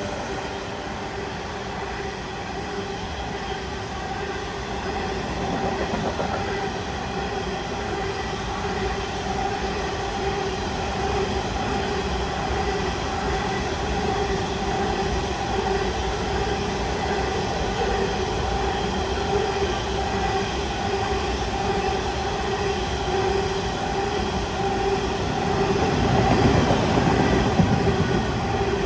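Coal train hopper wagons rolling past: steady wheel and rail rumble with a constant whining tone over it, the rumble swelling near the end.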